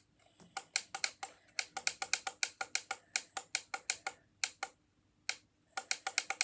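Alarm clock's setting controls clicking in quick runs of about five clicks a second as the alarm time is stepped up press by press, with a pause of about a second shortly before the end.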